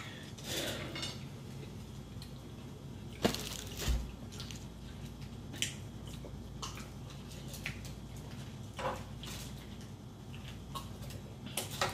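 Quiet eating sounds: scattered clicks and short scrapes of a fork and a spoon against food, with chewing, over a faint steady low hum. The clearest clicks come about three and four seconds in.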